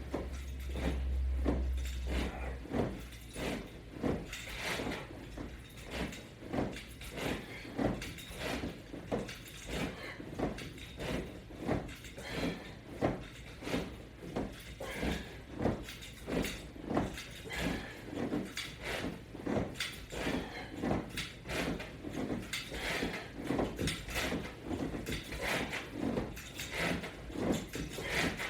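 Rhythmic sounds of sit-ups and crunches on a resistance-band exercise system, about one short stroke a second, the breathing and body and band movement of each repetition. A low rumble sounds in the first couple of seconds.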